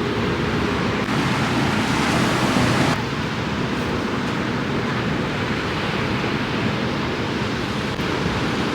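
Steady rushing of surf and wind across the microphone, a little louder for a couple of seconds before dropping off suddenly about three seconds in.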